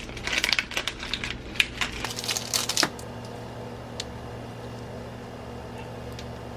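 Quick run of clicks and rustles from hands handling sliced deli meat and its packaging at the sandwich. About three seconds in the handling stops, leaving a steady low hum with an odd tick.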